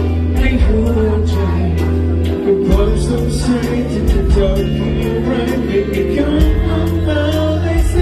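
A male vocalist singing a pop song live into a handheld microphone over amplified band accompaniment, with a steady drum beat and a sustained bass line.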